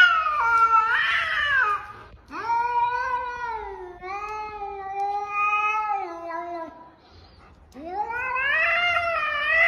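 A cat yowling in long, wavering, drawn-out calls: one trails off about two seconds in, a second lasts about four seconds, and a third starts near the end. It is a cat's threat yowl, given in a stand-off.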